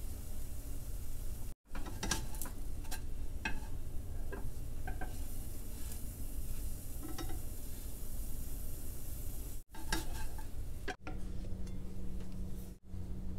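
Banana oat pancake sizzling in a nonstick frying pan, with a slotted spatula scraping and clicking against the pan as it slides under the pancake. After a cut near the end, a low steady hum.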